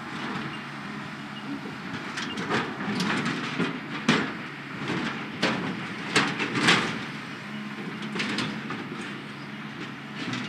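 Diesel excavator engine running steadily while its bucket crushes and scrapes a sheet-metal structure, giving repeated metallic crunches and clanks, the loudest about four seconds in and again between six and seven seconds.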